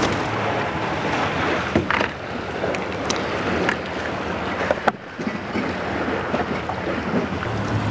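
Wind buffeting the microphone and sea water washing around a small fishing boat, a steady rushing noise with a few faint clicks.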